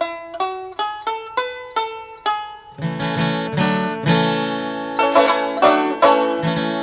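Background music on a plucked string instrument. Single notes are picked at a steady pace, then the playing grows fuller and busier about three seconds in.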